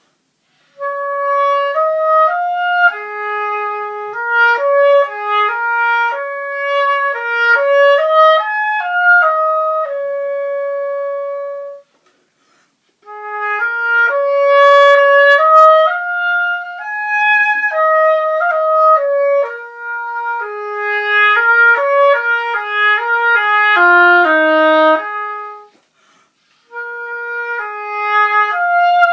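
Solo oboe playing an unaccompanied melody in phrases, the first ending on a long held note, with two short pauses for breath, about twelve seconds in and near the end.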